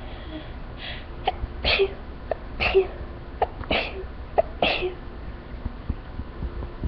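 A person's sneezing fit: four sneezes in quick succession, about a second apart, each with a short sharp catch just before it. The fit was set off by a bouquet of flowers.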